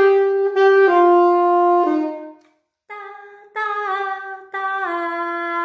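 Alto saxophone playing the last notes of a swing exercise phrase, held notes stepping down in pitch. After a short gap, about halfway through, a woman sings the same falling line in syllables.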